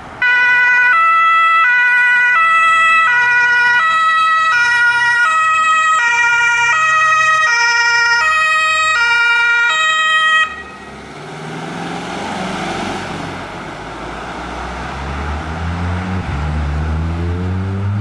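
German two-tone emergency-vehicle siren (Martinshorn) alternating between a low and a high note about every half second, then cutting off suddenly about ten seconds in. After it comes a vehicle engine pulling away, its pitch rising in steps as it accelerates.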